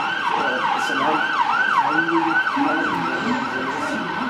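Emergency vehicle siren sounding a fast yelp, its pitch swooping up and down about three times a second.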